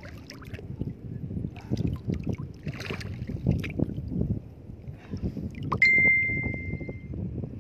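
Water sloshing and splashing around the legs of someone wading through shallow seawater, with wind on the microphone. About six seconds in, a sharp click is followed by a steady high beep lasting a little over a second.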